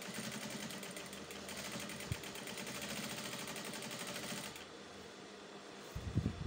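Industrial flatbed sewing machine stitching fabric at a fast, even rate for about four and a half seconds, then stopping. A few low thumps follow near the end.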